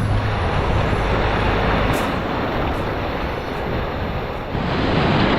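Steady rushing of wind and water, with a low steady hum, like a boat motor, that stops with a click about two seconds in.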